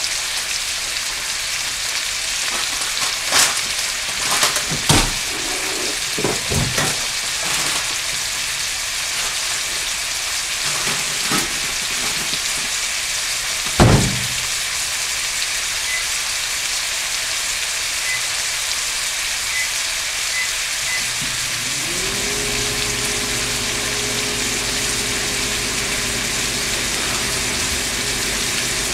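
Seasoned beef cubes sizzling in oil in a nonstick skillet: a steady frying hiss with a few sharp pops, the loudest about 14 seconds in. About 22 seconds in, a low motor hum starts, rises briefly in pitch and then holds steady.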